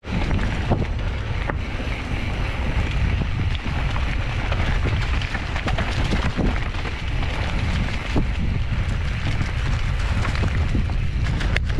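Wind buffeting a handlebar- or helmet-mounted microphone as a mountain bike rolls over dirt trail, a steady heavy rumble with scattered knocks and rattles from the bike on rough ground.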